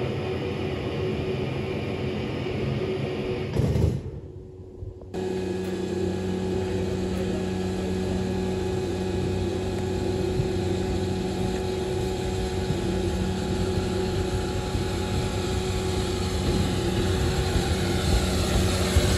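Steady rumble of a moving vehicle, cut off sharply about four seconds in. Then steady station ambience with a held hum, growing louder over the last few seconds as SECR O1 steam locomotive No. 65 draws into the platform.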